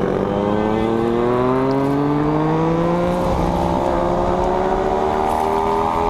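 Triumph Daytona 675's three-cylinder engine pulling hard under acceleration, its pitch rising steadily, over wind rush on the bike-mounted camera.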